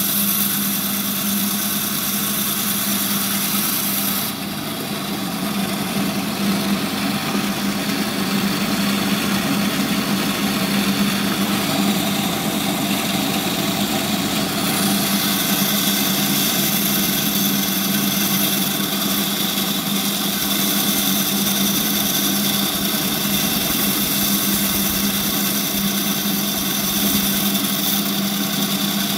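Gryphon C-40 diamond band saw running with a steady hum while coral is pushed through its blade to cut frags. Its high hiss drops for about ten seconds from about four seconds in, then comes back.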